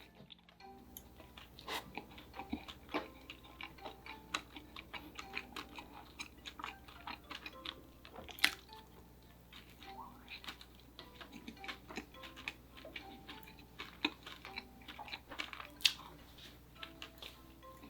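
Close-miked eating sounds: chewing with many small crisp clicks and smacks scattered irregularly throughout, over quiet light background music.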